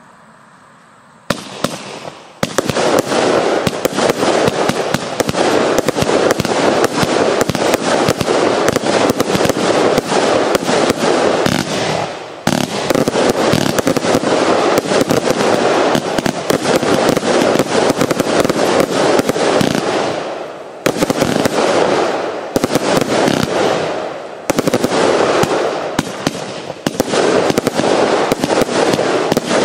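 Event Horizon firework going off: after a quiet second or so, a dense, continuous run of rapid bangs and crackles, with a few brief lulls between bursts.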